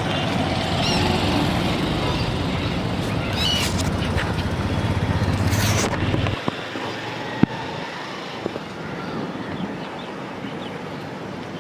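Gulls giving short calls over a low, steady motor rumble; the rumble drops away about six seconds in, leaving quieter background with occasional clicks.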